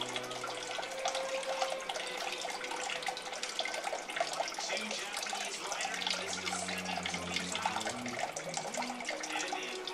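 Steady rushing, water-like noise full of fine crackles, with a faint low hum about six to eight seconds in.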